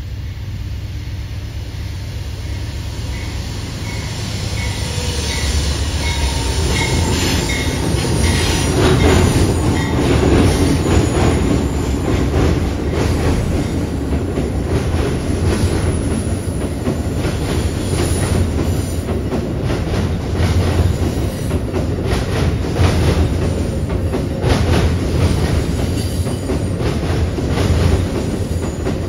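Amtrak passenger train crossing a railroad swing bridge, its wheels clattering over the rail joints in a dense run of clicks over a steady low rumble. It grows louder from about four seconds in as the train comes closer.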